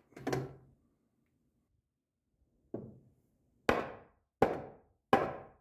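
Hammer striking wood: one light tap, then three hard blows about three-quarters of a second apart, each ringing out briefly.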